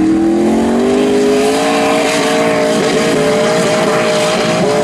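Formula Offroad buggy's engine at full throttle as its wheels dig up a steep gravel hill. The revs climb over the first second and a half, then hold high with brief dips, over a hiss of spraying gravel.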